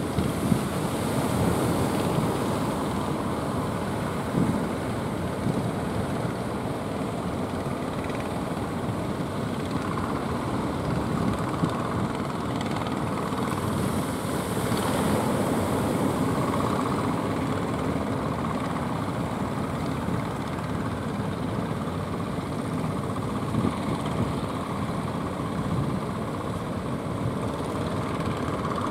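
Engines of motorised outrigger fishing boats running with a steady drone, mixed with the wash of waves and wind.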